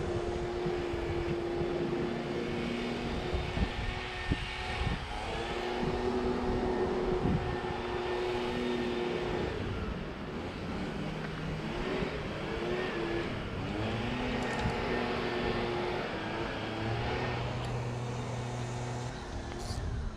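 Engine drone from a passing motor, holding steady pitches that break off and resume, wavering up and down in the middle and dropping to a lower hum near the end, over wind noise.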